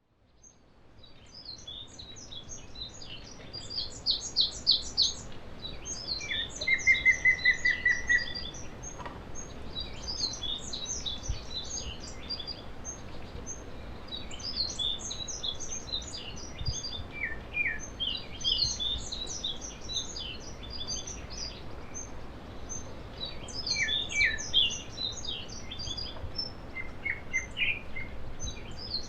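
Several wild mountain birds chirping and calling over one another in quick, high notes. About six and a half seconds in, one bird gives a quick run of about a dozen repeated lower notes lasting over a second. The sound fades in over the first couple of seconds.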